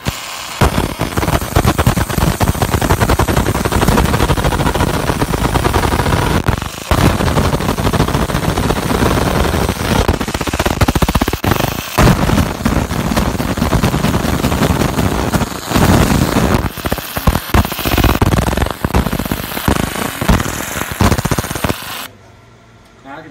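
50 W fiber laser engraving the woven cone of an 8-inch Digital Design subwoofer: a loud, dense, rapid crackling as the beam burns into the surface, with brief breaks, stopping abruptly near the end.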